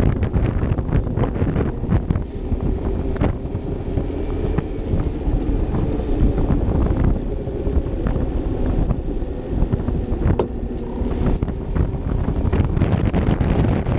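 Wind buffeting the microphone of a camera on a moving Vespa LXV 150 scooter, over the scooter's engine running steadily. A few brief knocks stand out, around three seconds in and again near ten seconds.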